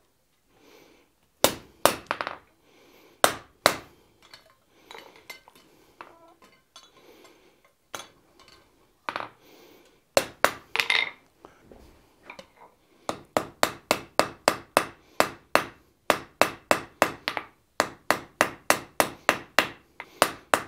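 Hand forging hammer striking a red-hot steel bar on an anvil. A few scattered blows and lighter taps come first, then about two-thirds of the way in a steady run of about three blows a second.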